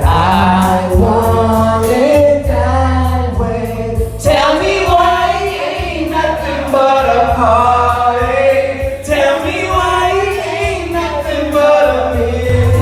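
Voices singing along to backing music with a strong bass.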